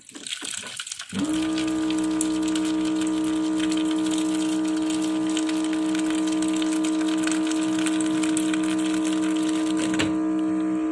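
Hot water running from a water dispenser's tap into a plastic bowl of vegetables, a steady splashing hiss, joined about a second in by a steady pitched hum that holds unchanged.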